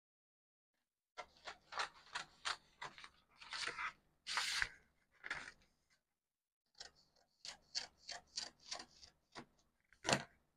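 Scissors cutting through pattern paper: two runs of short crisp snips, about three a second, with some longer paper scraping in the first run and a brief pause between the runs; the sharpest snip comes near the end.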